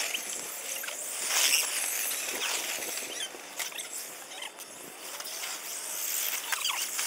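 Electric radio-controlled trucks racing on a dirt track strewn with dry leaves. High motor and drivetrain whine rises and falls as they pass, with tyres scrabbling through the leaves and dirt, loudest about a second and a half in.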